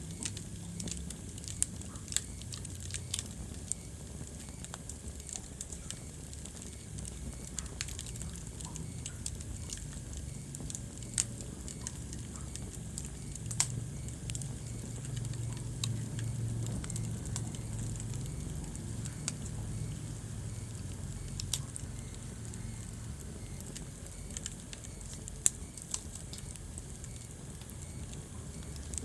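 Wood fire burning in a fireplace: a steady low rumble and hiss of flames with scattered sharp crackles and a few louder pops from the burning logs.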